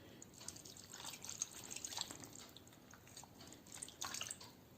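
Buttermilk being poured over chicken pieces in a bowl: faint, irregular dripping and small wet splats.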